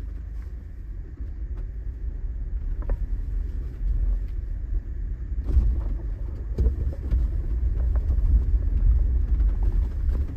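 2020 Jeep Wrangler Sahara driving up a rough driveway in four-wheel drive: a steady low rumble, with a few short knocks and clunks from the rough surface about three, five and a half, and six and a half seconds in.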